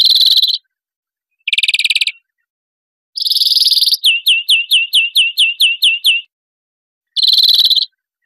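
European greenfinch singing: short, rapid, buzzy trills in separate phrases, one of them running into a string of about ten quick rising notes.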